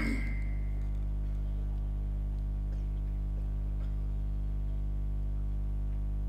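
Steady low electrical hum from the public-address system, with no speech over it.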